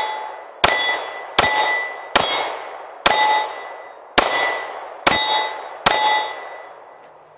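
Springfield Hellcat subcompact 9mm pistol fired seven times at a steady pace, a little under a second apart, each shot followed by the ringing clang of a steel target being hit.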